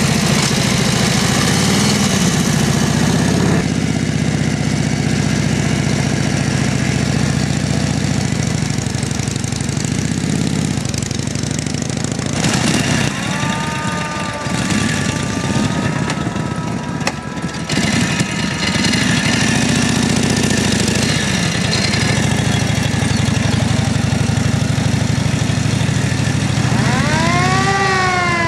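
Engines of WWII military vehicles running steadily: a jeep towing a field gun, then a military motorcycle idling and pulling away. Near the end a whine rises and falls several times.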